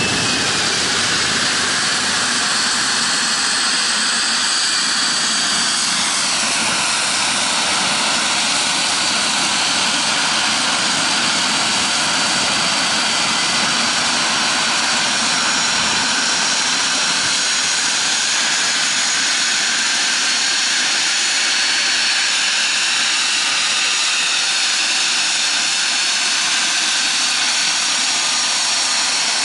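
Embraer 505 Phenom 300 business jet taxiing, its twin Pratt & Whitney Canada PW535 turbofans running at low thrust with a steady high-pitched whine over a rushing hiss.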